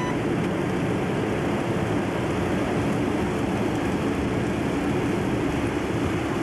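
Steady in-flight noise on the flight deck of a Boeing 727 jet freighter: an even, unbroken rush of air and engine noise with no change in level.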